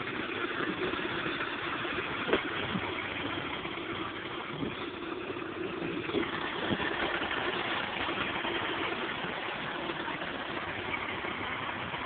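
Range Rover 2.5 turbodiesel engine running steadily while the truck works through mud, with a few short clicks.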